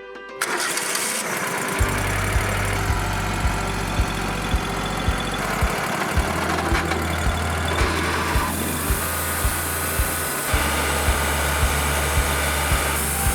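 A sawmill engine starts about half a second in and runs steadily, under background music with a steady beat of about two beats a second.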